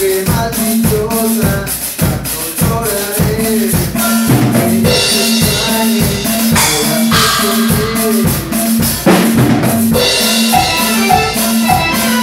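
Electronic keyboard and drum kit playing live together: a steady beat pulsing about twice a second under a keyboard melody, with cymbals washing in about five seconds in and again near the end.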